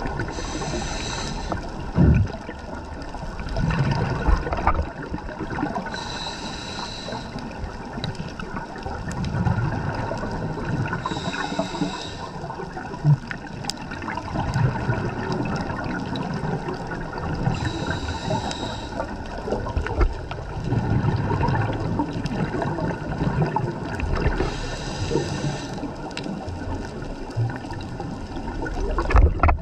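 Scuba diver breathing through a regulator underwater: five bursts of exhaled bubbles, about one every five to six seconds, over a steady low underwater rumble.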